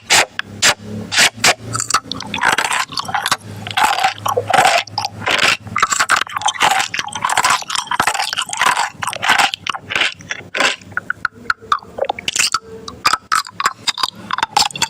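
Close-up eating sounds: crunchy food being bitten and chewed, a dense, irregular run of sharp crunches and crackles with no pause.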